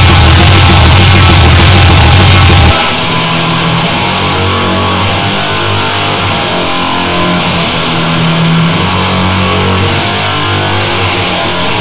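Blackened death metal recording. The full band plays with a heavy low end for the first few seconds. About three seconds in, the drums and low end drop out and guitar carries on alone, somewhat quieter.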